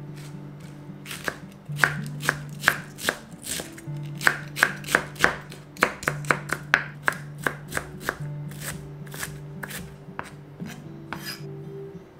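Chef's knife chopping cabbage on a wooden cutting board: a quick run of sharp knocks of the blade meeting the board, about three a second, thinning to a few scattered knocks in the last few seconds. Soft background music underneath.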